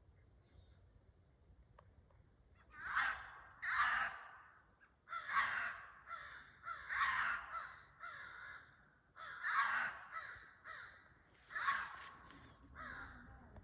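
An animal giving a series of harsh, raspy screaming calls, in twos and threes, starting about three seconds in; the uploader ties the screaming to foxes. A steady high insect drone runs underneath.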